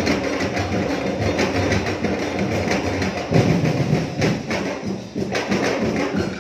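Street-dance drum ensemble playing a fast, dense percussion beat, with a louder swell a little after halfway.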